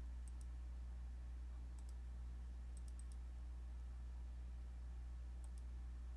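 Faint clicks at a computer, mostly in quick pairs with one run of three, over a steady low electrical hum.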